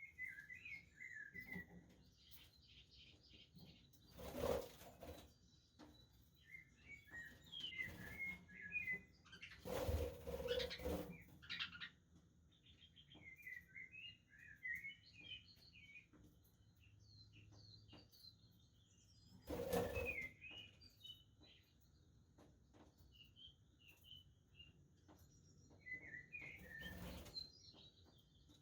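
Budgerigars chattering in quick, scratchy warbles and chirps in bursts throughout. There are four short, louder rushing sounds in between.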